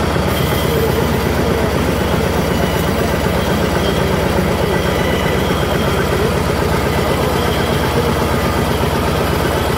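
An engine idling steadily, with an even beat of about ten pulses a second.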